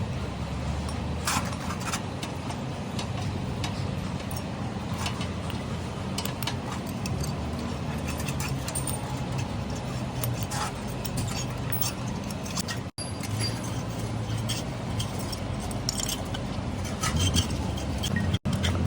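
Light metallic clinks and taps, scattered and irregular, over a steady low engine-like hum.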